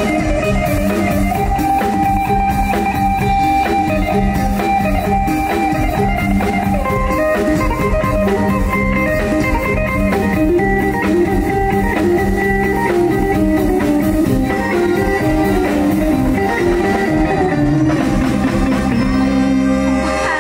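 Mor lam band music with plucked guitar melody lines over bass and a drum kit, playing at a steady beat.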